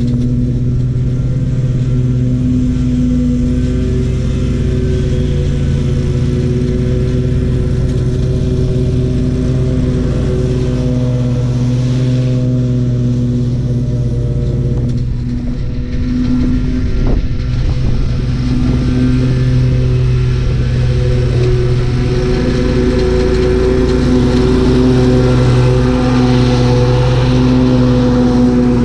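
Lawn mower engine running steadily while mowing, its note dipping and recovering slightly as the load changes, getting a little louder near the end.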